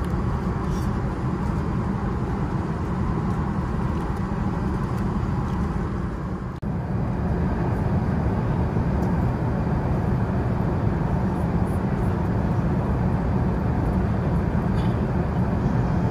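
Steady jet airliner cabin noise from inside an Airbus A380: a constant low roar of engines and airflow. It dips briefly about six and a half seconds in, then goes on slightly louder.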